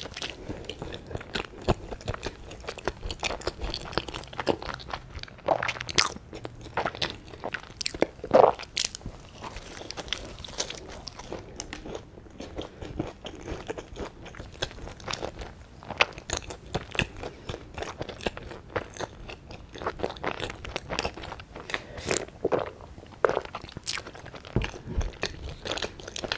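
Close-miked biting and chewing of soboro (streusel-topped) bread with a crispy crust: many sharp, irregular crunches, with a few louder ones scattered through.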